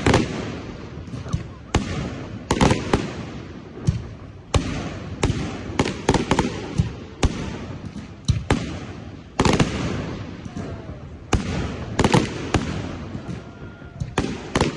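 Aerial fireworks shells exploding in an irregular series of sharp bangs, about one or two a second, each trailing off in an echoing rumble.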